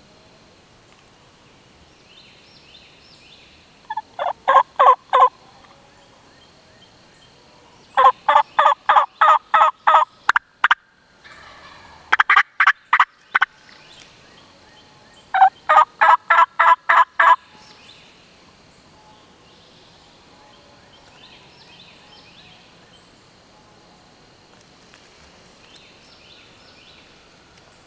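Turkey yelping in four loud runs of evenly spaced notes, about five a second; the second run is the longest.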